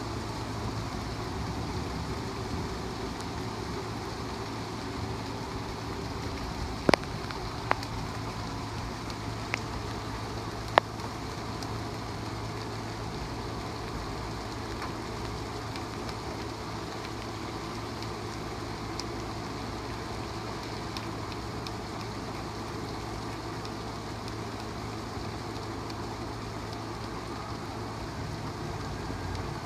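Steady rain falling in a thunderstorm, a constant hiss with a low steady hum beneath it. Four sharp clicks stand out about a quarter of the way in, the loudest near the fourth.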